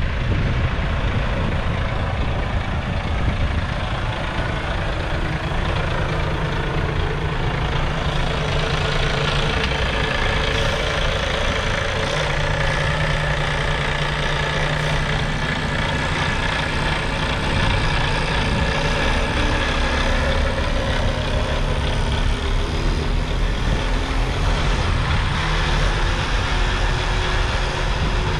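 Heavy diesel truck engine idling steadily.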